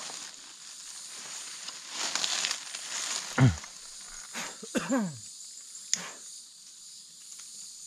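Forest ambience with a steady high-pitched insect drone. Rustling about two seconds in, then a few short calls that drop in pitch near the middle, the first the loudest, and a sharp click soon after.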